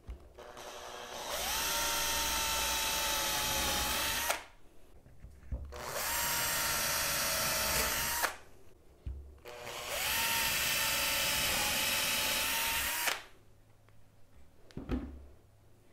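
Small cordless drill boring 3 mm holes through a wooden panel: three runs of a few seconds each, the motor whine holding one steady pitch while it cuts, with short knocks in between as the drill is set to the next hole.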